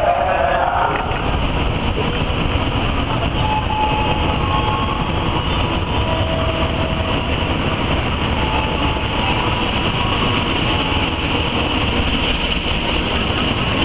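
Diesel-hauled freight train running past a station platform: steady noise of the locomotive and the wheels of the wagons on the track.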